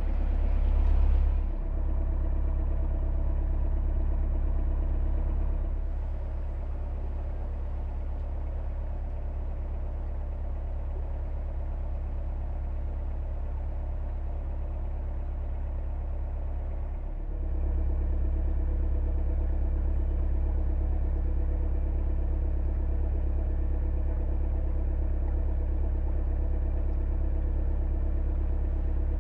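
Narrowboat's diesel engine running steadily at cruising speed, a low, even drone. It swells briefly about a second in, drops a little about six seconds in and comes back up after about seventeen seconds.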